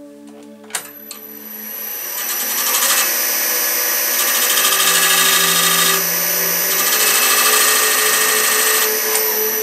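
Wood lathe switched on with a click about a second in, spinning up over a couple of seconds and running with a steady high-pitched whine. A pencil held against the spinning ash blank to mark lines adds a scratchy hiss. The lathe is switched off near the end.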